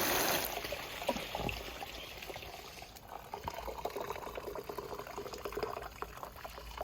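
Water rushing through a small 3D-printed sluice cuts off about half a second in as the flow is shut down, leaving water trickling and dripping as the sluice drains.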